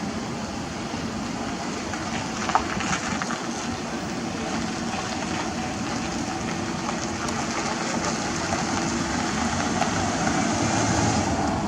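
Vehicle engine and road noise, a steady hum that swells gradually as a vehicle passes close by, with one brief sharp click about two and a half seconds in.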